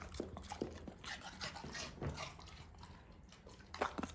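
A pet dog being given food, making faint scattered clicks and snuffles.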